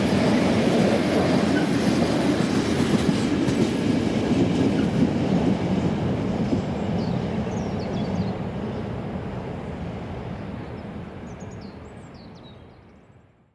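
A freight train of open wagons rolling past on the rails. Its wheel-and-rail rumble dies away over the last several seconds as the end of the train clears and recedes. A few faint high chirps come through near the end.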